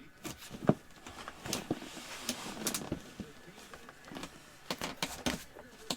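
Packaging being handled and opened by hand: a string of clicks, taps and rustles, the sharpest click about two thirds of a second in.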